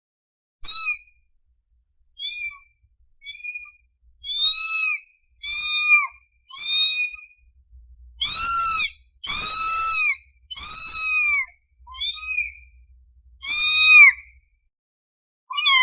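A kitten meowing over and over: about a dozen high, arching mews roughly a second apart, loudest in the middle stretch. These are a hungry kitten's calls for its mother.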